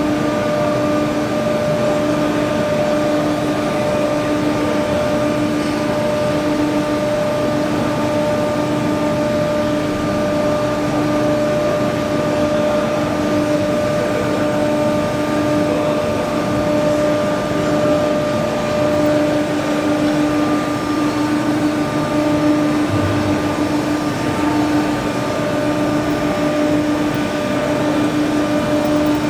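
CNC tube bending machine running: a steady mechanical hum with a constant pitched drone whose lowest note swells and fades.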